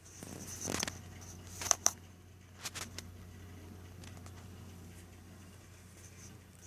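Burnham Alpine ALP150W gas-fired boiler running with a steady low hum, with a brief rustle, two sharp clicks just under two seconds in and a few softer clicks about a second later.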